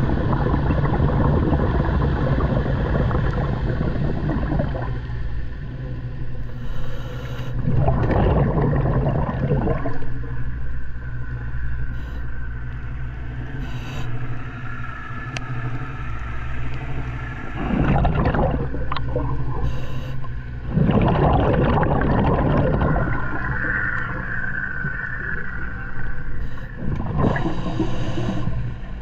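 Scuba diver's regulator breathing underwater: bursts of exhaled bubbles rushing and gurgling every several seconds over a steady low hum.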